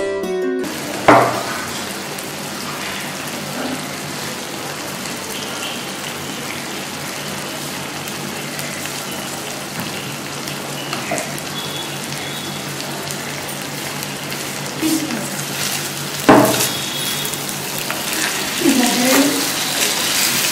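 Chicken gravy sizzling steadily in a kadai, with two sharp knocks, one about a second in and one about four seconds before the end. Near the end a spoon starts stirring the gravy.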